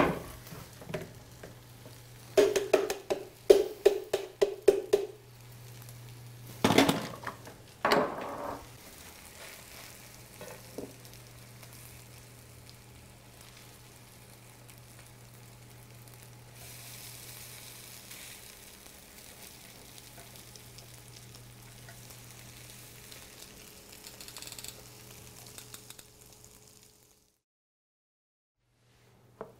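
Fish cakes frying in an electric frying pan, a faint steady sizzle that stops suddenly a few seconds before the end. In the first few seconds there is a quick run of clinks and clatter, then a few louder knocks of utensils around seven to eight seconds in.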